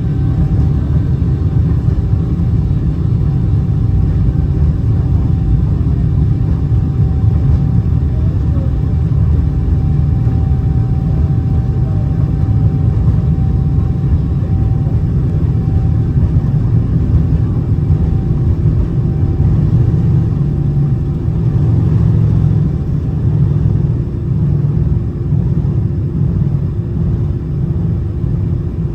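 Boeing 777-300ER with GE90 engines during takeoff, heard as a loud, steady low rumble of the engines and airframe. A faint high tone fades about two-thirds of the way through, while a lower tone comes in.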